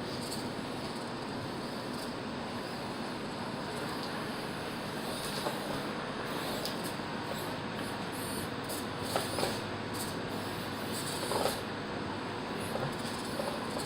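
Small 1/24-scale RC crawler's electric motor and geared drivetrain whirring steadily as it drives, with a few sharp clicks or knocks about nine and eleven seconds in.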